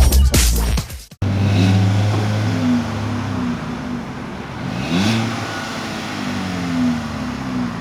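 Hyundai Veloster's four-cylinder engine heard through a stainless-steel Solo Performance Mach-2N1 cat-back exhaust, holding steady revs. About halfway through the pitch drops sharply and climbs straight back up, then holds steady again. Electronic dance music plays for about the first second and then cuts off.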